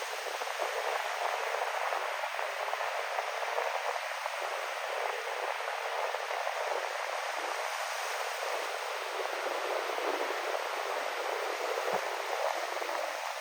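Ocean waves and wind on a windy sea, an even, steady rush with no single wave crash standing out and no deep rumble.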